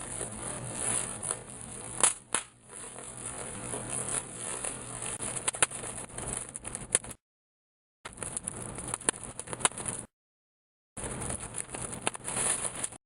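Plastic bubble wrap being handled and popped: crinkling with sharp pops, two close together about two seconds in and more scattered later, over a steady hiss. The sound cuts out completely twice for about a second.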